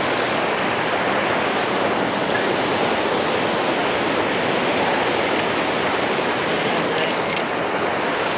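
Steady rushing of turbulent white water churning out below a hydroelectric dam.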